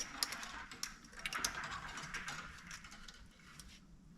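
Scattered light clicks and brief scraping of small metal scrap pieces being handled, growing sparser toward the end.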